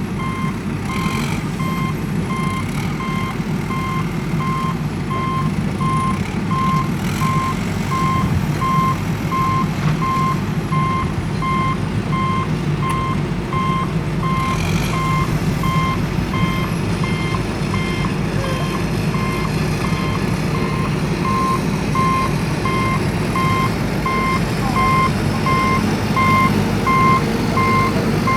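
Vehicle reversing alarm beeping steadily in an even repeating pattern over a continuous low engine rumble.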